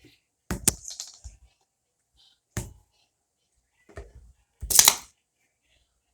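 Close handling noises: four short crackling knocks, the loudest just before the end.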